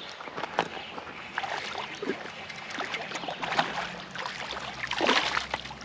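Irregular splashing and sloshing of river water as a hooked smallmouth bass is brought in, over the steady rush of the river.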